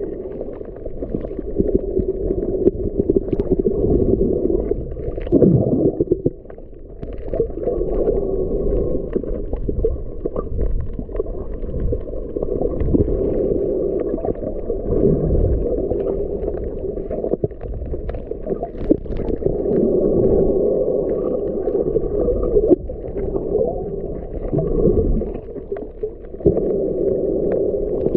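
Muffled underwater water noise picked up by a submerged camera: a low sloshing rumble that rises and falls every few seconds, with scattered faint crackles.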